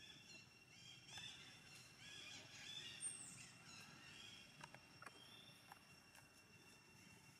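Faint, high-pitched cries of a baby monkey: several short, arched squeals, loudest about 3 s in.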